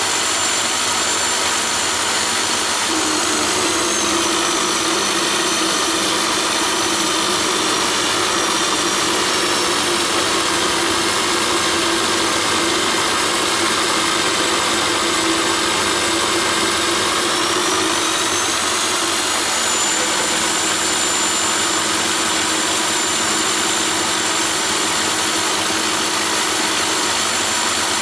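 Myford ML7 lathe running an end mill that mills a steel bar as it is fed past the cutter: a steady machine whir with a high whine that drops slightly in pitch a few seconds in and rises back about two-thirds of the way through.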